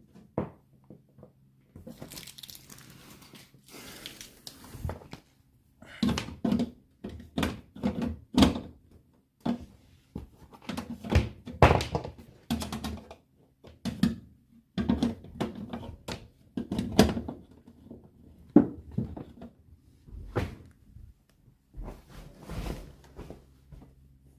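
A run of irregular knocks and thunks from the plastic shelves, bins and fittings of an American fridge freezer being handled, with short crinkling and peeling sounds as stickers and protective film come off.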